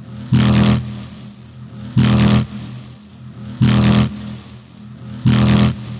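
A cinematic sound effect: a short, loud, hissing blast with a deep pitched low end, repeated four times at an even pace of about one every one and a half seconds.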